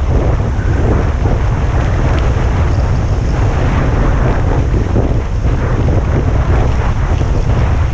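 Steady loud rumble of wind buffeting the microphone of a camera carried by a downhill skier, over the continuous hiss and scrape of skis on packed snow.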